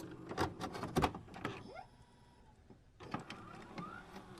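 VCR tape mechanism at work, with a run of sharp mechanical clicks and short rising motor whirs as a cassette loads. There is a brief lull about two seconds in.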